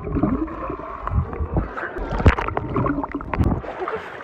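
Sea water sloshing and splashing around a camera held just under and at the surface, with a muffled underwater rumble and gurgling broken by short splashes.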